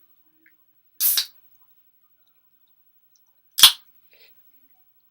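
Two short, sharp cracks close to the microphone, about two and a half seconds apart, the second louder and more abrupt.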